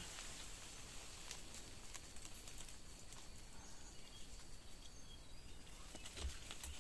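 Quiet forest ambience: scattered light clicks and rustles, a few faint bird chirps, and a thin high steady tone for a few seconds in the middle. A low thump comes near the end.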